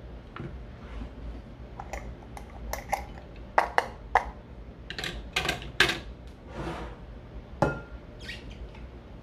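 Kitchen utensils and dishes clinking and knocking: a series of irregular sharp clinks, the loudest clustered in the middle and one more a little before the end.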